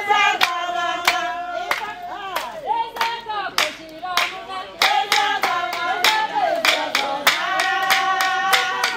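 A group of people singing together, with hand claps keeping time.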